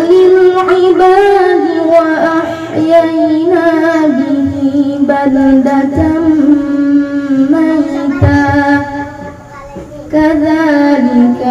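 A boy reciting the Quran from memory in a melodic chant, drawing out long held notes that waver up and down. He pauses for breath briefly about nine and a half seconds in, then goes on.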